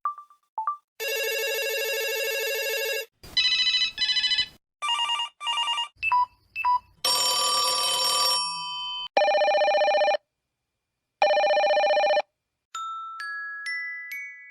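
A run of different telephone ring sounds one after another: short electronic beeps, a long electronic ring, fast trilling rings, and about halfway through two steady rings about a second long each with a pause between. Near the end a melodic ringtone starts, a rising series of single chime notes.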